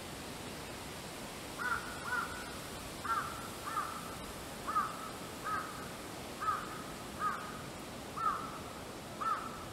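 An animal calling over and over: about ten short, arched calls, mostly in pairs, starting a couple of seconds in.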